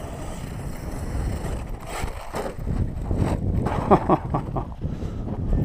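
Wind rumbling on the microphone, with an electric RC truck running over the dirt; about four seconds in, its motor gives a few short rising and falling whines.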